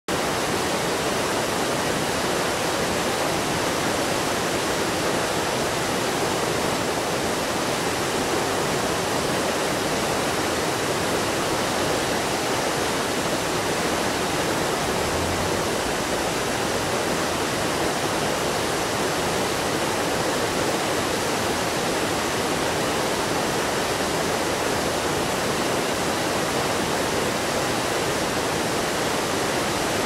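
Mountain stream rapids: white water rushing steadily over rocks in an unbroken, even rush.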